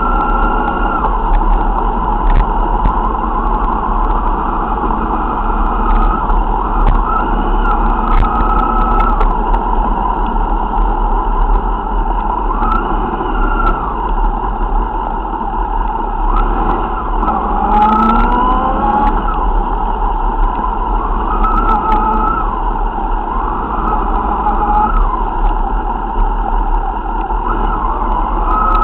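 Motorcycle engines running at low speed with road and wind noise, the engine note rising and falling again and again with the throttle and one longer rev about two-thirds of the way in. Heard through a low-grade camera mic, which makes the sound dull.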